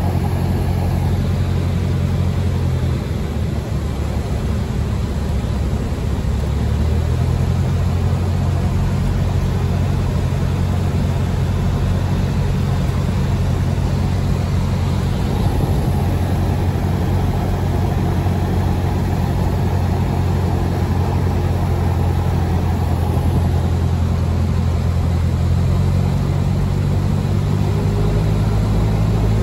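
Cabin sound of a Cessna 172 in flight: the piston engine and propeller run steadily with a low drone and a constant rush of air. The engine note dips slightly about three seconds in and picks back up around seven seconds.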